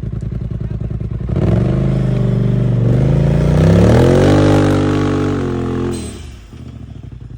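Polaris RZR side-by-side engine going from idle to full throttle about a second in, its pitch climbing and holding high for several seconds as it pulls up the muddy hill, then dropping back to idle near the end as the throttle is let off.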